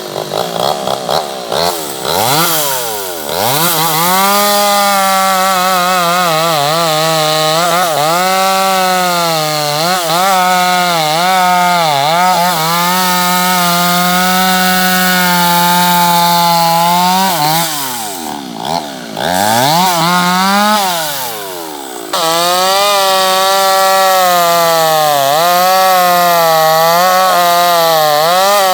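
Chainsaw cutting wood: the engine revs up and settles into a steady, slightly wavering drone as it pulls down under load in the cut. About 17 s in it comes out of the cut, drops nearly to idle and revs back up, then bites into the wood again with a sudden jump in loudness.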